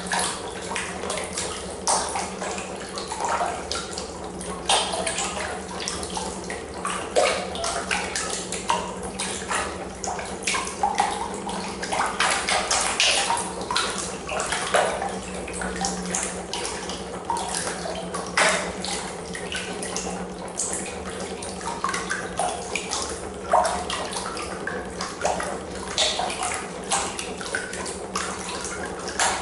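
Water churning and splashing in a plastic tub, stirred by a small neodymium-magnet piston engine pulsing in an electromagnet coil under the surface. Irregular sharp splashes come over a continuous wash, with a steady low hum underneath.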